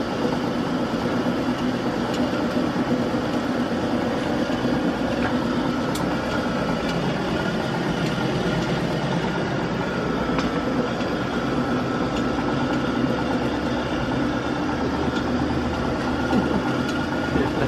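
Machine-shop machinery running steadily: a continuous mechanical drone with a thin, steady whine above it and a few faint clicks.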